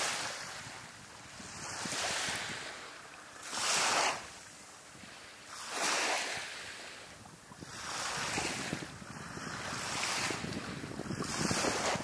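Small waves breaking and washing up on a sandy beach, the surf swelling and fading about every two seconds.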